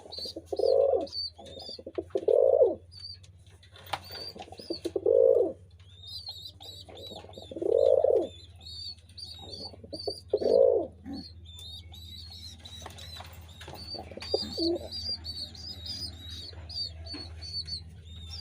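Domestic pigeons cooing in low, swelling bursts a couple of seconds apart, which fade after about eleven seconds. Rapid high bird chirping runs on throughout over a steady low hum.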